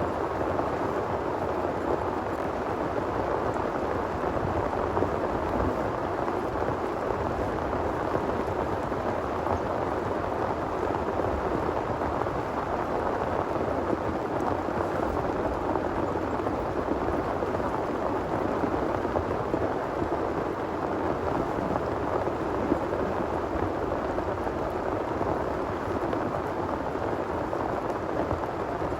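Heavy rain pouring steadily in a dense, even patter, with no break or surge in strength.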